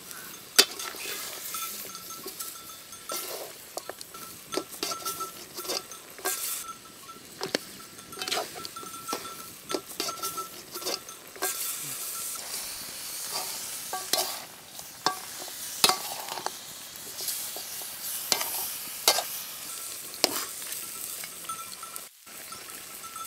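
Pork pieces sizzling in a large metal pot over a wood fire, stirred with a perforated metal ladle. The ladle gives repeated sharp scrapes and clinks against the pot over a steady frying hiss.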